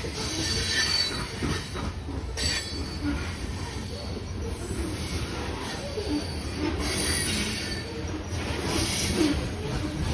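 A train passing close by, loud: a steady rumble of wheels on the rails, with high-pitched wheel squeals coming and going over it.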